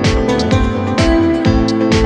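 Background music with a steady beat of about two strokes a second, with guitar-like plucked notes.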